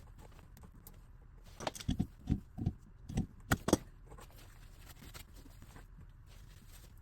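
A quick run of about eight knocks and clunks, bunched together between about one and a half and four seconds in, with quiet before and after.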